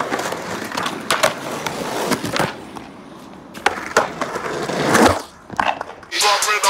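Skateboards rolling on concrete, with several sharp board clacks and landings. The loudest part is a rising rush of wheels ending in a hard smack about five seconds in. Music comes in just before the end.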